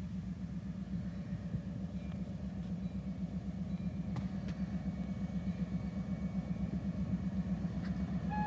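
EMD GP30 and GP28 diesel locomotives working a freight train on approach: a low, pulsing engine rumble that grows steadily louder. Just before the end the locomotive air horn starts to sound.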